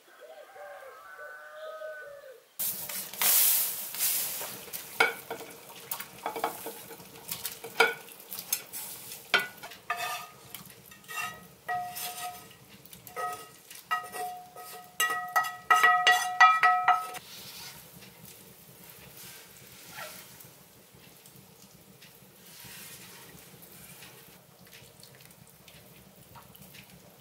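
A bird's curving calls briefly at the start, then a cooking pan scraped and tapped out over an enamel soup pot: a run of scrapes and sharp clinks, many of them ringing, as the fried tomato mixture is emptied in. About two-thirds of the way through the knocking stops, leaving a quieter stretch of simmering soup being stirred with a wooden spoon.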